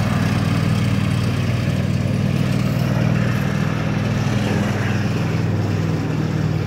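Small engine of a homemade tracked vehicle built on Toro zero-turn mower hydrostatic drives, running steadily under way as it drives off, a little fainter toward the end.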